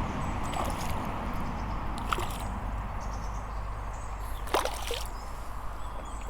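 Water splashing and sloshing as a hooked barbel thrashes at the surface while being played in, a few separate splashes with the loudest about four and a half seconds in, over a steady low background rumble.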